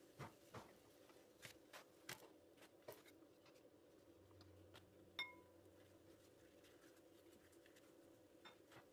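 Faint clicks and taps of gözleme being turned and moved by hand in a nonstick frying pan, with one brief ringing tap about five seconds in, over a faint steady hum.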